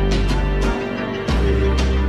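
Background music with a steady beat, heavy bass and held chords.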